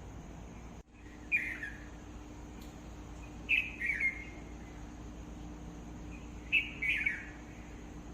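A bird calling three times, a few seconds apart; each call is a short two-part note that falls in pitch, over a faint steady hum.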